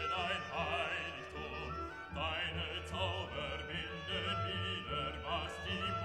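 Background music: a classical piece with an operatic voice singing with wide vibrato over sustained orchestral accompaniment.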